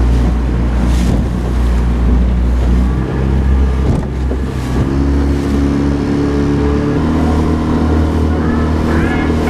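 Outboard motor running at speed on a small aluminium boat underway, under a rush of wind and water noise. The engine's pitch steps up about five seconds in and again about seven seconds in.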